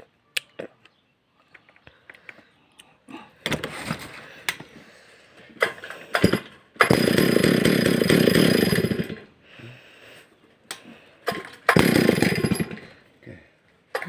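Stihl MS 382 two-stroke chainsaw being started. After a few clicks it fires in short bursts that die away, runs for about two and a half seconds midway, then dies again before catching once more near the end.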